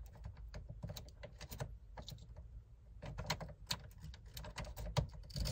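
Many small, irregular clicks and taps of a replacement ignition lock cylinder being worked into the steering column of a 2004 GMC Yukon by hand.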